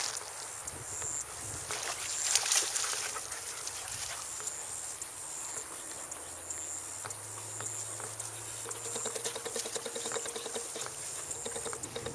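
Outdoor field ambience with light rustling and patter from German Shepherds running through grass, under a high chirp that repeats in short pulses.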